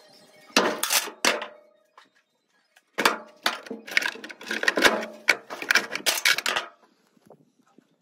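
Metal hand tools clattering and clinking as they are rummaged through and pulled out of a plastic toolbox: a short rattle, then a longer run of knocks and clinks that stops about a second before the end.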